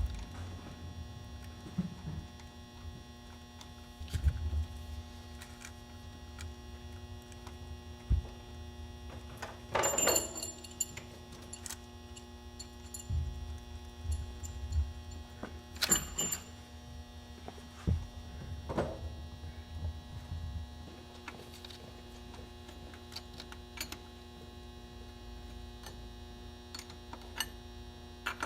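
Steady electrical hum, with scattered clicks and metallic knocks from a wrench and fuel-line fittings being handled during the install; the sharpest ones come about ten and sixteen seconds in.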